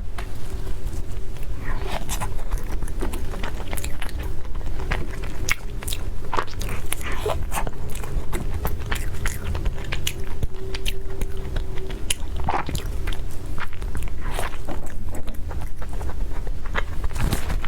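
Close-miked eating: chewing with many small crisp crunches and mouth clicks, over a steady low hum.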